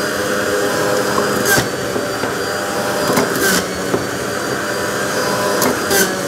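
National juicer-blender's electric motor running steadily while juicing fruit, a continuous whir, with about three short clicks along the way.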